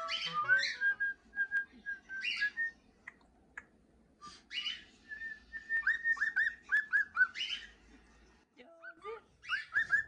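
A male cockatiel sings, a run of short whistled notes, many of them falling, mixed with scratchy chatter. A person whistles along. This whistled song is typical of a male cockatiel.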